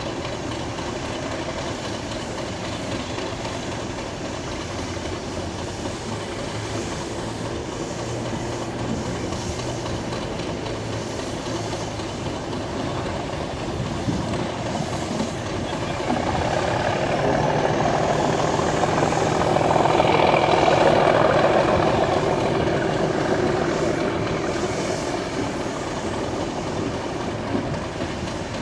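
Class 68 diesel locomotive running past with its train: a steady engine hum that grows louder to a peak a little past the middle as it passes close by, then fades.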